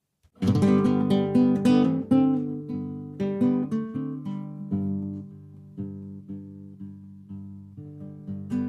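Background music: acoustic guitar, plucked and strummed, starting about half a second in after a brief silence.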